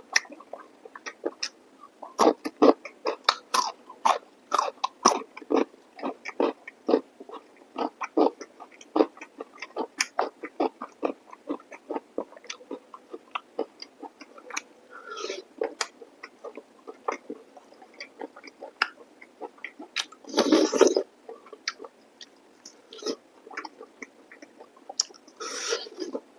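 Close-miked eating sounds of chicken masala curry with rice: rapid wet chewing and lip smacking. A louder, longer burst comes about 20 seconds in.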